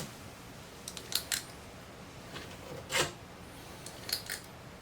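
Metal ice cream scoop clicking and scraping while scooping cookie dough and dropping it onto a baking pan: a few short clicks about a second in, a louder one near three seconds, and two more near the end.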